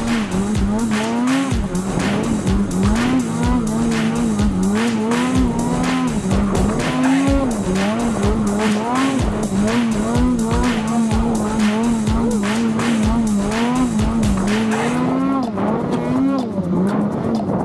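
Snowmobile engine revving up and down repeatedly as the sled rides, with music carrying a steady beat underneath that stops near the end.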